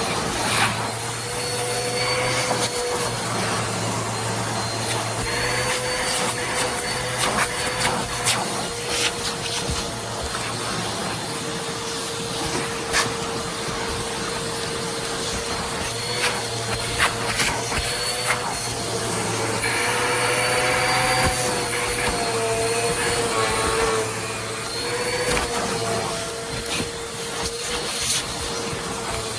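Eureka Airspeed bagless upright vacuum cleaner running steadily, its motor whine wavering slightly in pitch, with scattered sharp clicks throughout.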